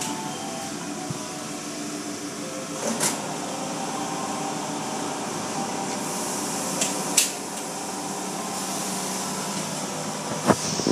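Automatic tunnel car wash heard from inside the car: a steady noise of water spray and wash machinery, with a few sharp knocks on the car, about three seconds in, again near seven seconds and near the end.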